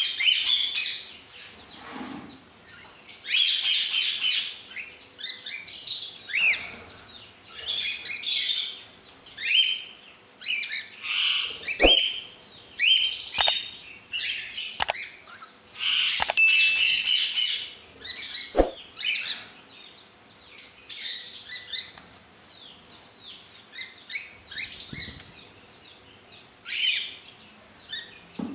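A flock of cockatiels chattering with repeated chirps and short whistled calls, with wings flapping. About five sharp knocks come in the middle.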